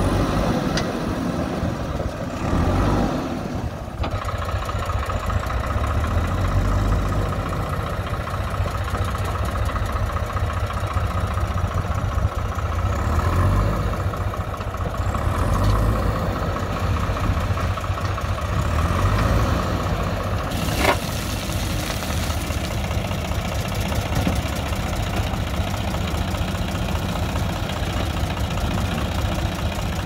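Diesel engines of a JCB 3DX backhoe loader and a Sonalika tractor running steadily with a low rumble while the loader works. A single sharp knock comes about 21 seconds in.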